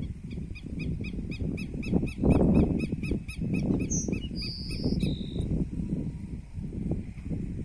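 A chama-chuva (tico-tico-do-campo) singing: a run of about twenty evenly spaced clear notes, about five a second, ending about halfway through with a few higher, buzzier notes. A low rumble lies underneath and swells briefly a little over two seconds in.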